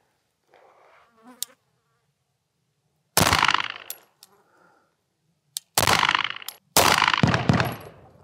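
2011-style pistol fired one-handed in slow, deliberate single shots. The first shot comes about three seconds in and several more follow close together near the end, each with a decaying echo.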